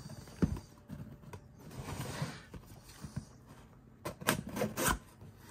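Small white cardboard mailer box handled and opened by hand: a knock about half a second in, then rubbing and sliding of fingers and cardboard, and a few sharp cardboard snaps near the end as the tuck flap is pulled open.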